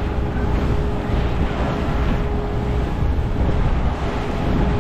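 Wind buffeting the microphone on a moving tour boat, over the steady noise of the boat's engine and water rushing past the hull. A thin, steady hum runs through it.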